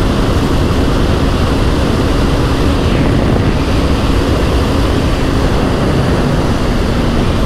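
KTM Duke 250 Gen 3's single-cylinder engine running steadily at high highway speed, under heavy wind rush on the microphone.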